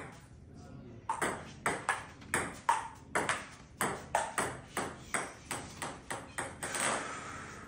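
Table tennis rally: the celluloid ball clicks alternately off the paddles and the tabletop, about three quick ticks a second for some five seconds, then stops. A brief hissing rush follows near the end.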